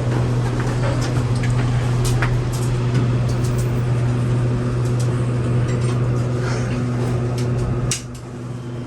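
Passenger elevator running: a steady low hum from the cab and drive machinery that stops abruptly about eight seconds in as the car comes to a halt, with a few small clicks over it.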